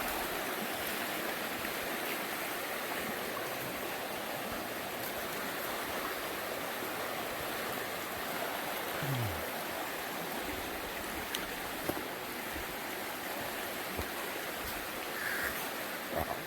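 Rushing river water, a steady even rush from the river running high after several days of heavy rain, with a few light ticks.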